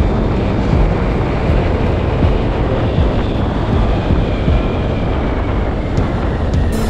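Honda Grazia 125 scooter riding along at a steady pace, its single-cylinder engine and the road noise buried under steady wind buffeting on the action camera's microphone.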